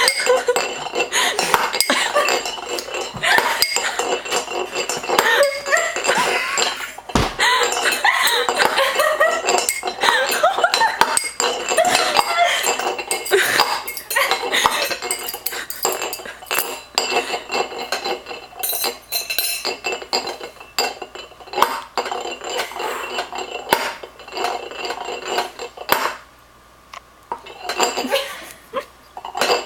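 A fork tapping on a few cups, played as improvised music: a quick, busy string of clinks, each with a short ringing note. The taps thin out and pause briefly near the end, then pick up again.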